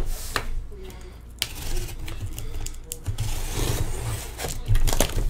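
Cardboard packaging of hobby boxes being handled and worked open by hand: a few sharp clicks and knocks, with scraping and rustling in between.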